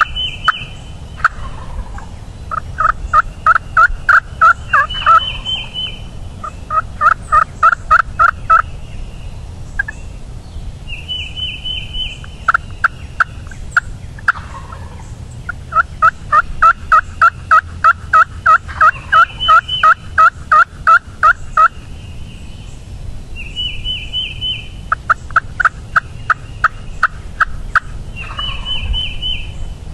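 Several wild turkey gobblers calling from the roost, in repeated runs of rapid, evenly spaced notes, the longest about six seconds. Short higher warbling calls come in between.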